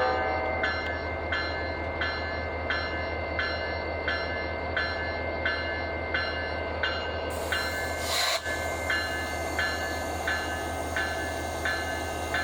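Electronic bell on a CSX SD40-3 diesel locomotive ringing steadily, about one strike every 0.7 seconds, over a low steady rumble. The tail of a horn blast dies away in the first half second, and there is a short burst of noise about eight seconds in.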